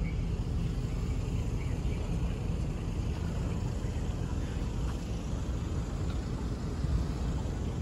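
Street ambience: a steady low rumble of traffic.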